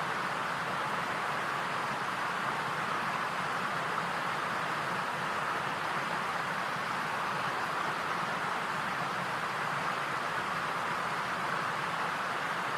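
A steady, unchanging rushing hiss, strongest in the middle range, with no beats, tones or clicks.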